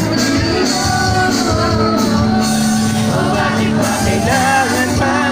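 Live band playing with a lead singer: a sung melody over steady bass and a regular drum beat.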